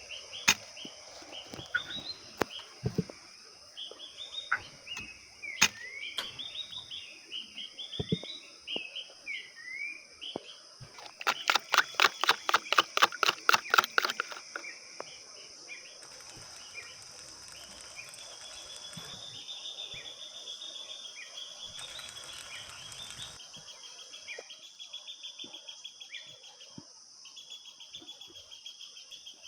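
Tropical forest ambience: a steady high insect drone with small birds chirping over and over, and a few scattered knocks. About eleven seconds in, a loud, rapid run of about fifteen sharp, evenly spaced notes or taps lasts some three seconds.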